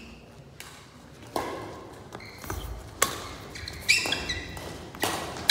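Badminton rackets striking a shuttlecock in a rally: a series of sharp hits, roughly one a second, with a brief high squeak around the middle, typical of court shoes on the hall floor.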